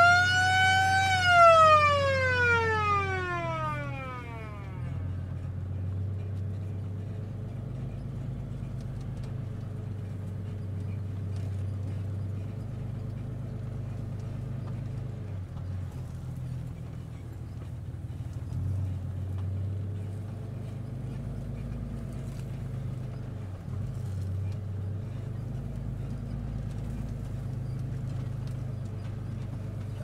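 A siren on a ranch feed truck gives one wail that rises to a peak about a second in and falls away over the next three seconds, sounded to call buffalo to the truck. After it, the truck's engine runs steadily with a low hum.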